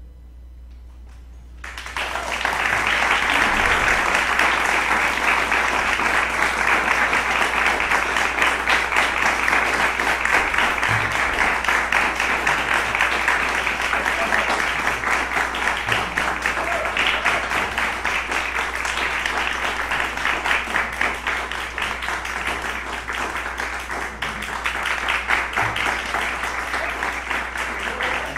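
A brief hush, then a concert audience breaks into applause about two seconds in and keeps clapping steadily.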